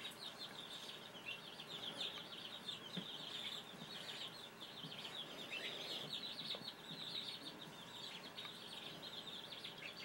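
Faint, rapid, high-pitched chirping that goes on without a break, from some small animal in the background; the tablet's power button makes no sound of its own.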